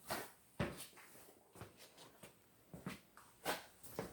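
A scattering of short, light clicks and knocks, about a dozen in four seconds, as of objects being handled and set down; no engine is running.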